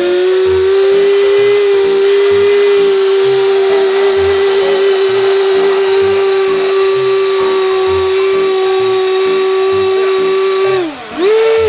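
Electric motors and twin rotors of a radio-controlled V-22 Osprey model running at high throttle in helicopter mode, a loud steady whine, without lifting it off the ground: too little power, which the flyers put down to its 3-cell battery. Near the end the whine drops away, surges briefly once more, then cuts off.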